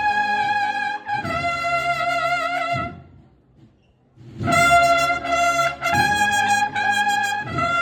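Spanish bugle band (banda de cornetas y tambores) playing a march: the bugles sound long held notes in phrases, break off for about a second near the middle, then resume.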